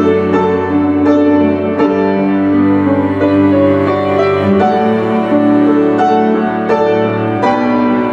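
An upright piano and a layered ensemble of five cellos, all played by one cellist, perform a piece together. Bowed cello notes are held under piano chords, and the harmony changes about once a second.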